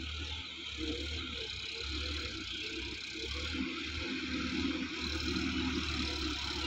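Sonalika DI-50 RX tractor's diesel engine running steadily with a low throb, growing a little louder about halfway through.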